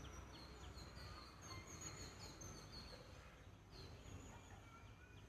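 Faint birds chirping, many short high calls scattered throughout, over a low steady background hum.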